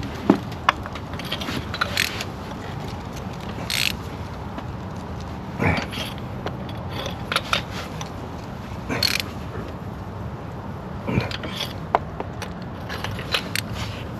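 Hand ratchet and socket clicking, with scattered sharp clinks and short scrapes of metal tools, as new spark plugs are snugged down.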